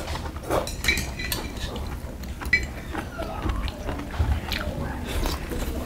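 Metal chopsticks clicking and clinking against brass bowls and dishes, with a couple of short ringing clinks, mixed with chewing and biting of food.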